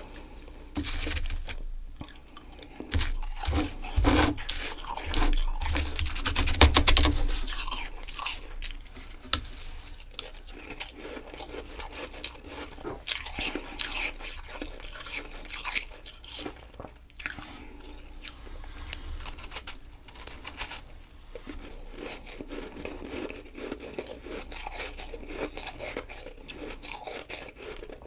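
Close-miked biting and chewing of a ball of powdery ice. A run of loud crunches comes in the first several seconds, then quieter, steady chewing crunches.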